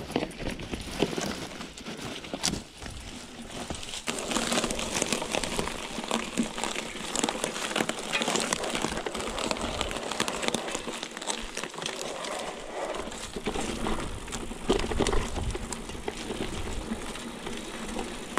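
Mountain bike tyres crackling over dry leaves, twigs and dirt on a forest trail, a dense run of small clicks and rustles. It is quieter for the first few seconds, while the bike is pushed through undergrowth, and fuller from about four seconds in, once it is being ridden.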